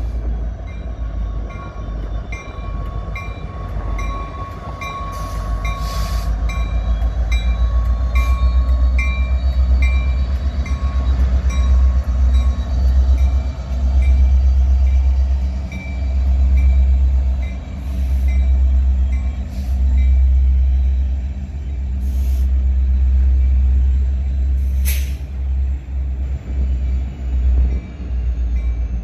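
Canadian National diesel-electric locomotives pulling away with an autorack freight train. The engines make a deep, pulsing rumble, with occasional sharp metallic clanks from the wheels and cars. A regular light ticking about twice a second runs through the first half.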